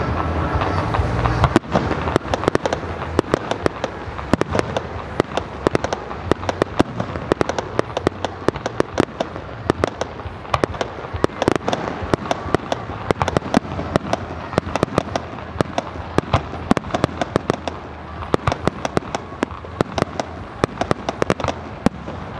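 Fireworks going off: a dense, continuous crackle of many sharp pops and bangs, several a second, with deeper booms in the first two seconds.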